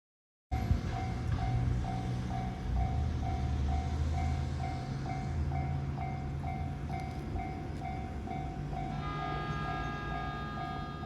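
Japanese level-crossing warning bell ringing in a steady, even repeat, about two to three dings a second, over the low rumble of a JR Nambu Line E233-series electric train. Several steady higher tones join in about nine seconds in.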